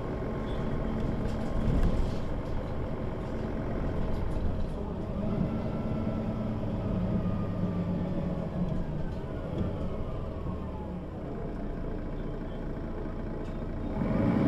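Mercedes-Benz O 530 G Citaro articulated bus running under way, its diesel engine and drivetrain a steady drone that strengthens through the middle, with a faint whine sliding in pitch, and grows louder again near the end.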